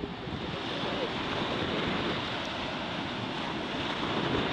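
Sea surf washing in over the shallows: a steady rushing of breaking waves that swells a little about a second in.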